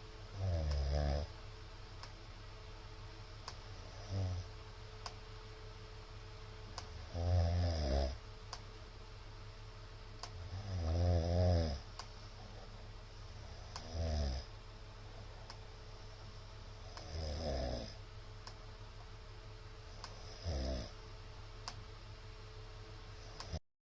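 A middle-aged man snoring in his sleep: seven loud snores about every three seconds, some longer and louder than others, over a faint steady hum.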